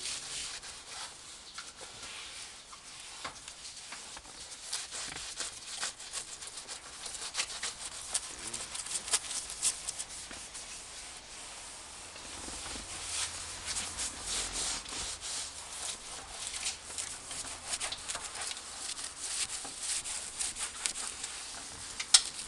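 Cloth rubbing and wiping across a leather car seat: a continuous scratchy swishing made of many irregular short strokes. There is one sharp click near the end.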